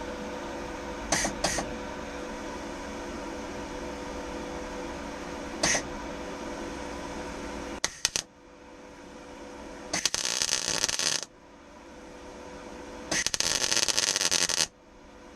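Röhr MIG-200MI MIG welder laying tack welds, the arc crackling in short bursts over a steady hum. A few brief blips come in the first six seconds and one near eight seconds, then two longer bursts of about a second and a second and a half.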